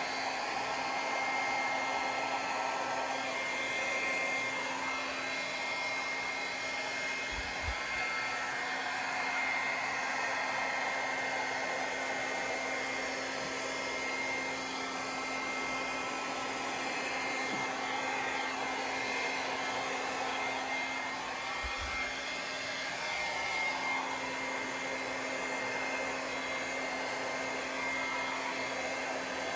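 Handheld electric air blower running steadily, a continuous rush of air with a steady whine, blowing wet acrylic paint across a canvas.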